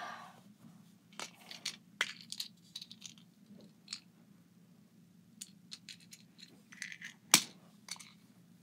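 Light clicks, taps and rustling of small hard objects being handled and rummaged through, with one sharp click about seven seconds in.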